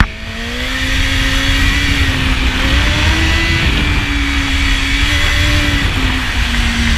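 BMW S 1000 RR inline-four sport-bike engine pulling hard through the bends of a hill climb, heard from onboard. The engine note dips sharply right at the start, then climbs slowly, drops back a little about halfway and eases down near the end as the rider works the throttle. Wind rush buffets the microphone throughout.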